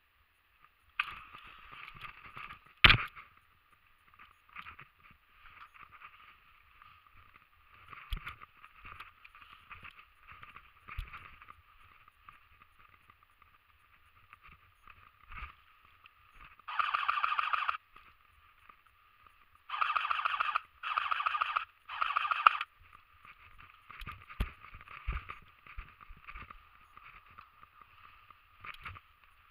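Airsoft gun firing four short full-auto bursts, each a rapid rattle: one just past the middle and three in quick succession a few seconds later. Between them are faint handling knocks and rustling, with one sharp knock about three seconds in.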